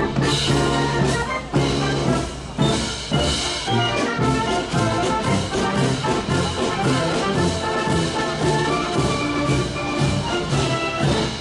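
Brass band playing, with trumpets and trombones carrying the tune over a steady drum beat.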